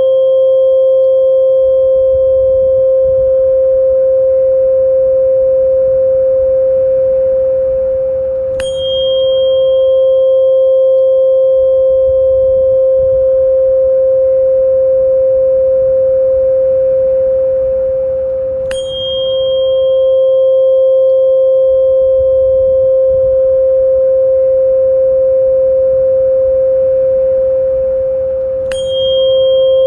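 A steady sound-therapy tone, a pure mid-pitched ring with a fainter higher overtone. It is re-struck three times about ten seconds apart, the last near the end, and each strike opens with a short bright ping.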